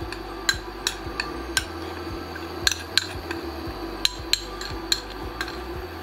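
A spoon tapping and knocking against a dish, about a dozen sharp clinks at irregular intervals, each with a short ring, as a thick paste is knocked off it into the dish.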